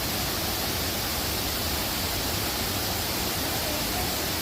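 Iruppu Falls in heavy monsoon flow, heard from its base: a steady, even rush of falling water.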